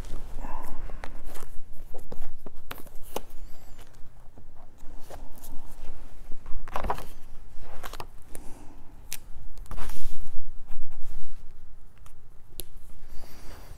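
Close rustling, scraping and scattered sharp clicks from a notebook and pen being handled, with the loudest rustles about seven and ten seconds in.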